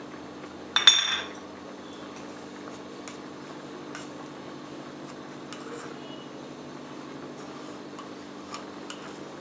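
A single sharp metal clink of a kitchen utensil about a second in, with a short ring. After it, a steady low hum with faint scattered ticks under a pan of milk and rice simmering on a gas stove.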